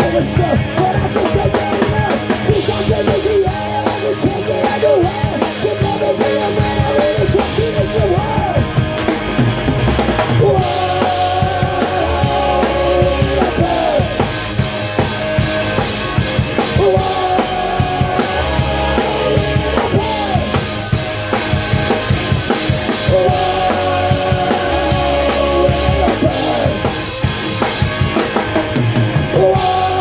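Rock band playing live: two electric guitars and a bass guitar over a drum kit keeping a steady beat.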